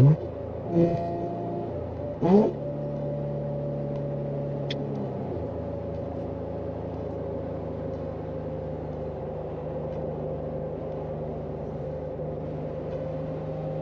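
Infiniti G35's 3.5-litre V6 heard from inside the cabin through a custom 3-inch straight-pipe exhaust with no catalytic converters and only a Magnaflow muffler. There are a couple of short rising revs in the first few seconds, then a steady cruising drone.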